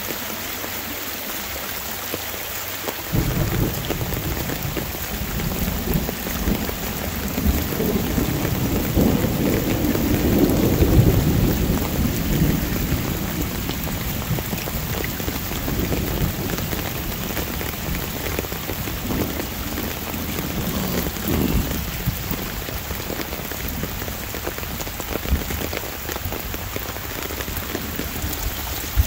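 Steady rain falling, with a long roll of thunder. The thunder starts about three seconds in, is loudest in the middle, and rumbles away over roughly ten seconds.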